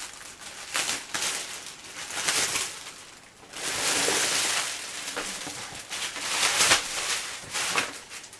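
Packaging being pulled off and handled in irregular bursts of rustling and crinkling, with a longer spell of dense crinkling about halfway through and a few sharp crackles.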